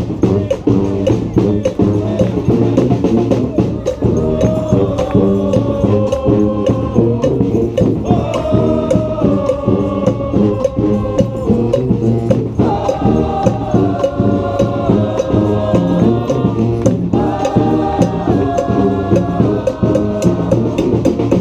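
Street brass band playing: horns hold long chords that shift every few seconds, over a steady, busy drum beat.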